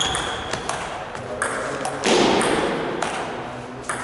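Table tennis ball clicking sharply off the players' bats and the table during a rally, a knock every half second or so. A louder burst of voice-like noise comes in about two seconds in and fades away.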